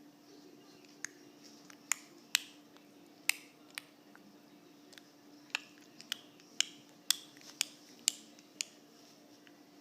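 A series of sharp, single clicks, about fifteen spread unevenly over ten seconds, some coming in quick pairs: the new clicking noise being made.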